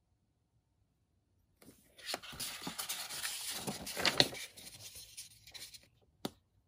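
Paper page of a model-kit instruction booklet being turned by hand: a rustle and crackle lasting about four seconds, starting about a second and a half in, then one sharp tap near the end.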